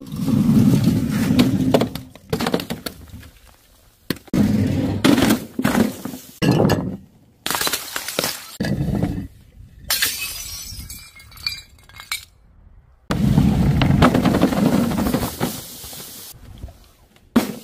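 About a dozen separate crashes as bottles and other objects dropped from a height hit paving and break. Glass shatters and shards clink, and each crash dies away before the next.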